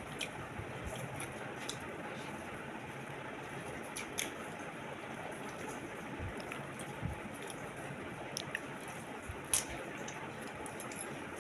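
Soft, wet squishing of rice and fish curry being eaten, over a steady background hiss, with a few short sharp clicks, the loudest about nine and a half seconds in.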